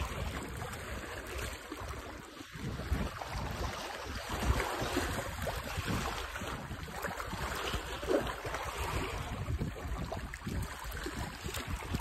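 Wind buffeting the microphone with small waves lapping against a rocky lakeshore, in gusts that come and go.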